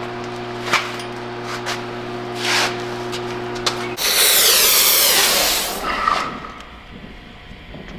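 A steady electrical hum with a few sharp clicks. About four seconds in, the hum cuts off and a loud hiss runs for about two seconds, then fades away.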